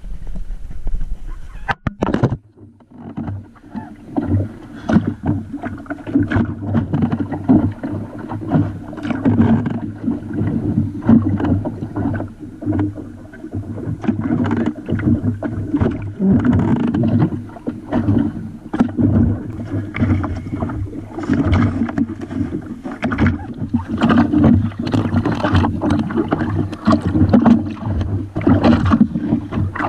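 Choppy water slapping and knocking against a small boat's hull, a dense run of irregular splashes and knocks over a steady low rumble. There is a sharp thud about two seconds in.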